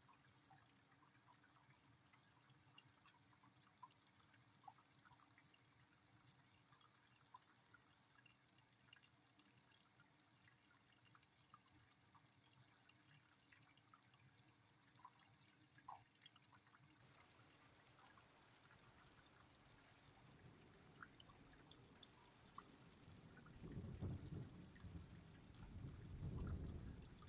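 Faint light rain with scattered drips ticking. Near the end a low rumble swells up twice.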